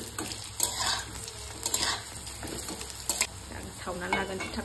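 Food sizzling in a pan while a utensil stirs and scrapes it in repeated strokes.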